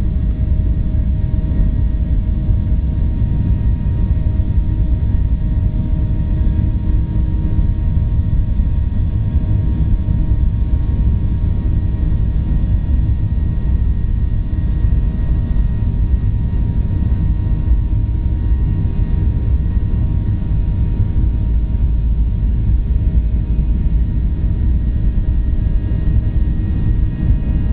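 Boeing 737 jet engines running at takeoff thrust during the takeoff roll, heard from inside the cabin: a loud, steady low rumble with a thin, steady whine above it.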